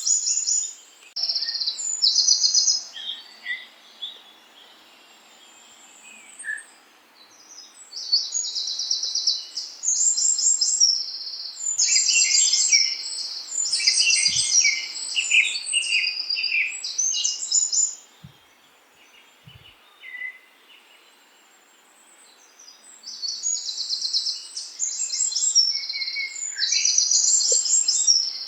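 Songbirds chirping and singing in fast, high-pitched phrases, coming in bouts with quieter lulls about four seconds in and again around eighteen seconds in, over a faint steady background hiss.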